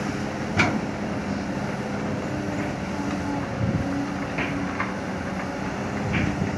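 Heavy diesel construction machinery running steadily, with a few sharp metallic knocks, the loudest about half a second in.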